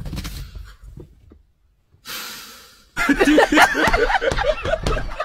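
A person's breathy vocal sounds: a hissing exhale that fades out about two seconds in, then from about three seconds a loud, rapid run of breathy voiced sounds.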